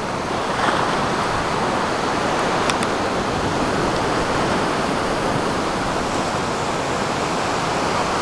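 Steady rushing noise of surf breaking on the shore, even and continuous with a slight swell about a second in.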